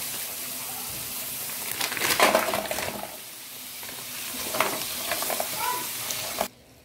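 Garlic and chopped peppers sizzling in butter and oil in a nonstick pan while a silicone spatula stirs them; about two seconds in, the sizzle surges loudly as raw peeled shrimp go into the hot pan. The sizzling cuts off abruptly near the end.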